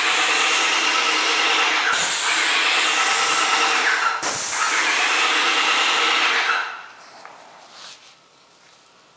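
TackLife airless paint sprayer spraying paint onto a door: a steady hiss of spray over the running pump, with two brief breaks, cutting off about two-thirds of the way in.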